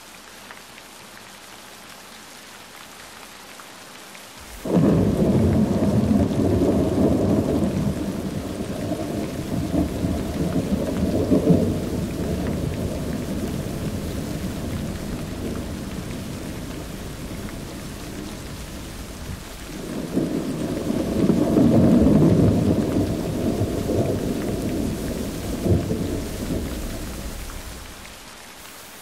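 Steady rain hiss, then about five seconds in a sudden long roll of thunder, low and much louder than the rain, that slowly fades, swells again near the three-quarter mark and dies away near the end.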